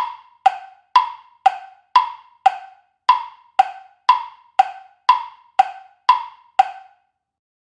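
Tick-tock clock sound effect: sharp wood-block-like ticks about two a second, alternating higher and lower in pitch, stopping near the end. It is a quiz countdown timer counting off the time to answer.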